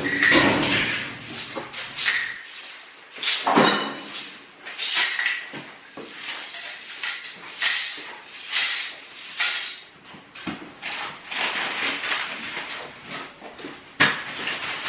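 Broom sweeping debris across a concrete floor: a run of scratchy, brushing strokes, mixed with rustling and knocks of trash and garbage bags being moved.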